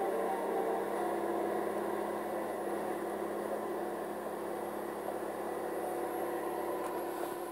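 Diesel engine of a Cat 523B tracked tree cutter running steadily, a drone with a few held tones that fades slightly toward the end.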